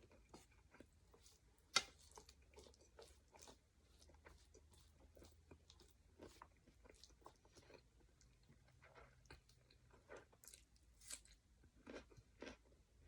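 Close-miked chewing and crunching of noodle papaya salad, a run of small wet crunches and mouth clicks. A single sharper click about two seconds in is the loudest sound.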